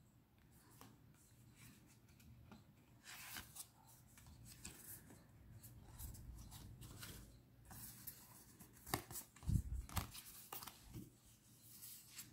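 Faint rustling, sliding and tapping of cardstock tarot cards handled by hand, in scattered short swishes, with a soft knock about nine and a half seconds in.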